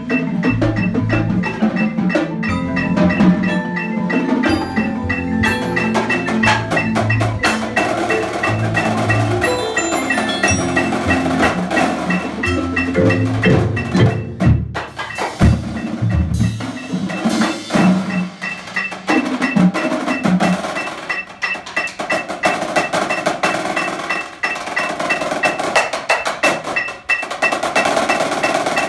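School percussion section playing together: marching bass drums, snare drums, a drum kit and mallet keyboard instruments, with dense, continuous strikes and some pitched notes.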